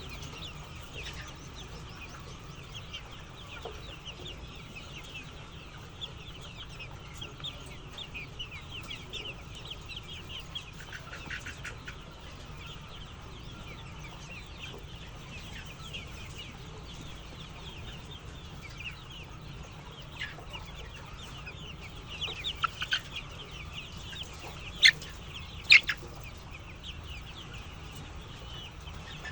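A flock of chickens calling together: a dense, continuous chatter of short chirps and clucks, with two louder sharp calls a second apart near the end.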